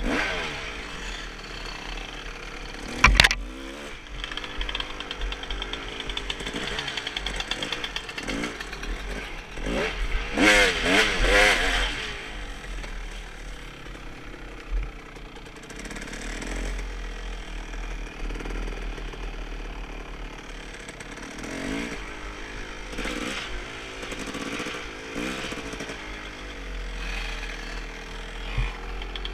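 Dirt bike engine revving up and down as it is ridden over rough trail, with a hard run of revs about ten seconds in. A single sharp knock comes about three seconds in.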